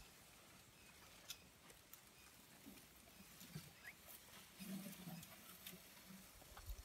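Near silence, with faint scattered clicks and rustles, a soft low sound about five seconds in and a few low thumps near the end.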